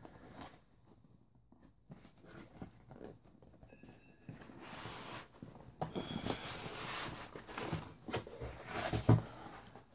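Cardboard boxes being pulled and slid out of a foam-lined cardboard shipping box: rustling and scraping with small knocks, busier and louder in the second half, and a short squeak about four seconds in.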